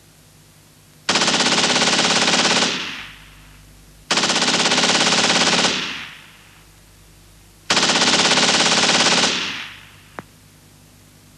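Three bursts of machine-gun fire, each about a second and a half of rapid shots with a short fading tail, about three seconds apart. A single faint click follows near the end.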